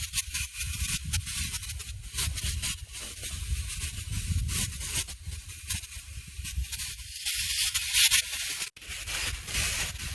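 Marinated chicken thighs sizzling on hot grill grates over charcoal: a steady crackling hiss with a low rumble underneath, cut off for a moment near the end.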